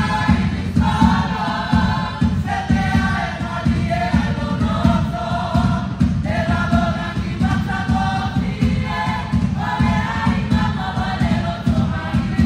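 A Samoan group singing together in harmony, in phrases, over a fast, steady low beat.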